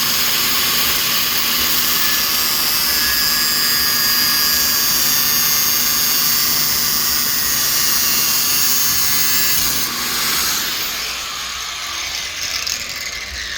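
Small high-speed power tool running steadily as it cuts out the middle shaft inside a wiper blade, easing off somewhat about ten seconds in.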